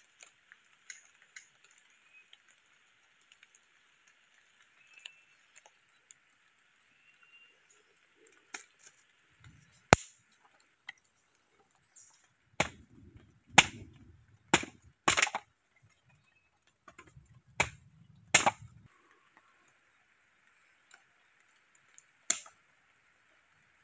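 Sharp cracks and knocks of dry bamboo being split with a knife and broken into firewood, a run of about eight loud cracks through the middle, the first two near-together pairs then single ones, with quieter clicks and rustles between.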